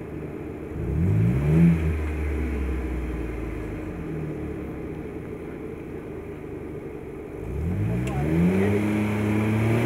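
Four-wheel-drive's engine revving up twice, about a second in and again near the end, with steady running in between, as it tries to drive out of deep muddy ruts.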